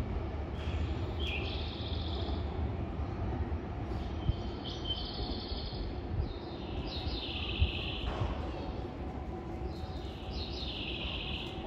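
Four short, high chirping calls, each opening with a quick downward slide, repeat about every three seconds. Beneath them is a low rumble from the departing Semboku 5000 series electric train as it moves away down the line, fading.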